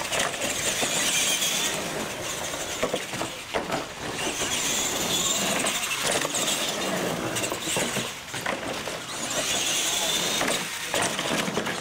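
R/C monster trucks racing: their motors and gearing whine in three surges as they are throttled hard, with a few sharp knocks in between from the trucks landing and hitting the course obstacles.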